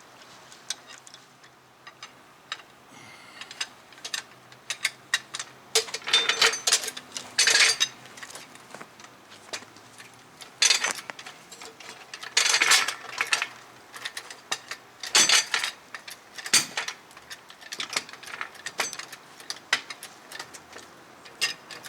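Metal tools and parts clinking and clattering in irregular bursts, with the busiest spells around a third of the way in and again past the middle.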